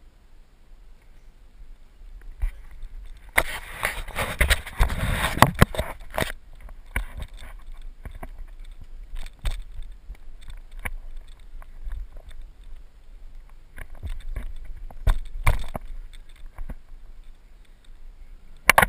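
Scraping and rustling close to the microphone of a camera worn by a climbing hiker, with scattered clicks and knocks. It is loudest for a couple of seconds about three seconds in and again briefly at the very end.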